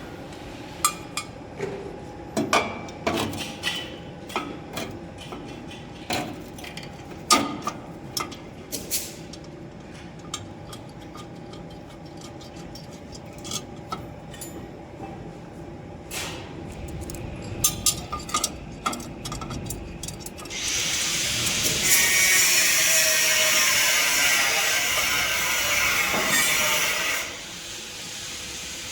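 Metal parts and hand tools clinking and knocking as the mould on a band saw cutting machine is being changed. About two-thirds of the way through, a power tool runs loudly and steadily for about six seconds, then stops.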